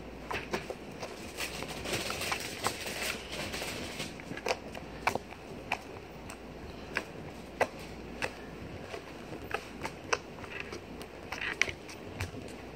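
Homemade slime being squeezed and played with by hand, making irregular sharp clicks and pops.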